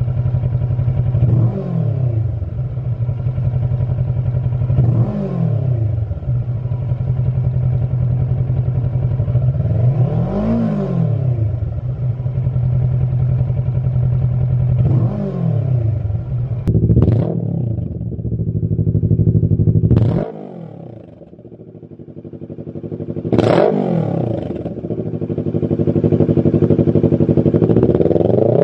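Kawasaki Versys 650 parallel-twin engine idling and revved repeatedly in short throttle blips. It runs first through the stock exhaust silencer. After a brief drop in level about two-thirds of the way through, it idles and revs through a Lextek XP13C aftermarket silencer.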